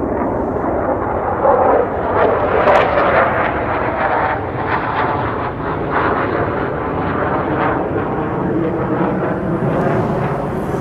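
Fighter jets passing high overhead, a loud continuous jet-engine roar that peaks about two to three seconds in and then holds steady.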